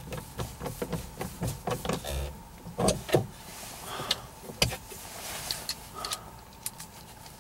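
Plastic clicks, taps and knocks from the overhead room-lamp console of a Kia Amanti being pushed and worked into the headliner by hand. It is a quick, irregular series with a few louder knocks about three seconds in and again a little after four and a half seconds, mixed with brief rustling.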